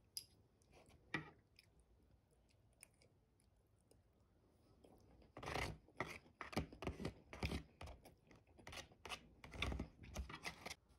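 Metal spoon scraping and clicking across the bottom of an emptied black plastic takeout tray, a quick run of scrapes starting about halfway through. Before that, only a couple of soft clicks.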